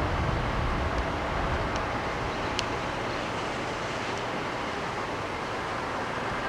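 Train cars rolling past on the rails, a steady rumbling rush, with a few brief high squeaks or clicks.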